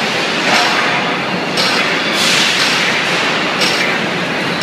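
Automatic friction saw blade regrinding machine's abrasive wheel grinding a large circular friction saw blade: a loud, steady grinding hiss of metal that swells in a regular rhythm about every one and a half seconds.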